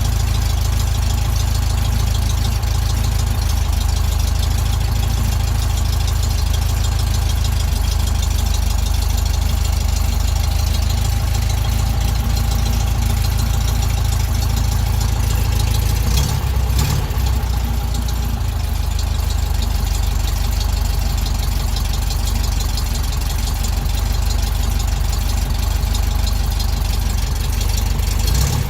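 1967 VW Beetle 1200's air-cooled flat-four engine idling steadily while warming up from a cold start.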